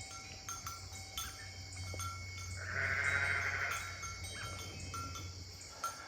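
A sheep bleating once, a wavering call of about a second and a half roughly midway through, over faint background ticks.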